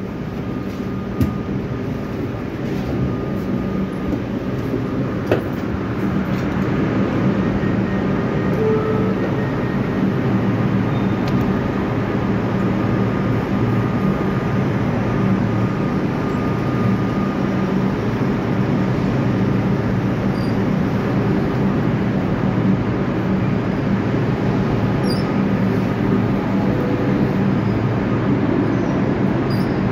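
Comeng electric suburban train standing at a platform, its equipment giving a steady low hum, with a few faint clicks early on.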